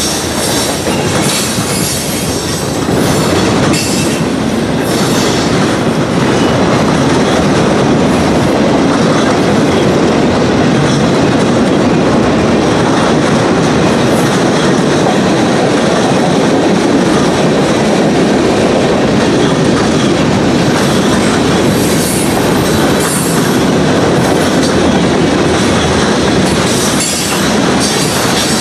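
Freight cars of a long train rolling past close by: the steady rumble of steel wheels on rail, with wheels clacking over rail joints. It grows a little louder about six seconds in.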